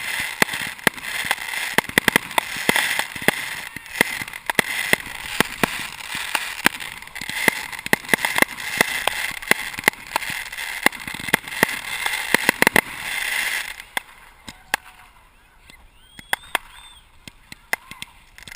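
Fireworks going off at close range: a dense crackling hiss with many sharp pops, which cuts off suddenly about fourteen seconds in, leaving a few scattered pops and faint squeals.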